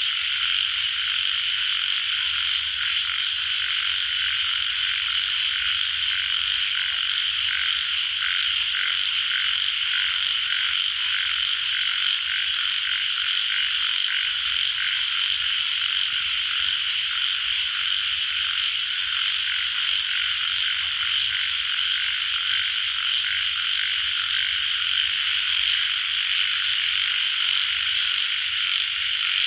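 A dense chorus of calling tiger frogs (Indian bullfrogs): a steady, continuous mass of calls with many quick pulsed croaks overlapping, busiest around ten seconds in.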